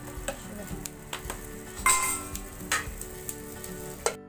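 Background music over sharp metal clinks as a metal tool knocks against an aluminium pan lid, with one louder ringing clang about two seconds in.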